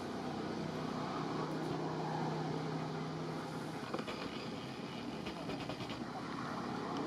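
Steady background hum of a running motor-vehicle engine, with a low drone that holds for a few seconds, and a few faint clicks later on.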